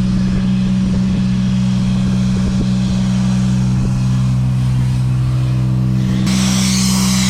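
A vehicle engine running at a steady speed, holding one even pitch. A higher hiss over it falls away at the start and comes back about six seconds in.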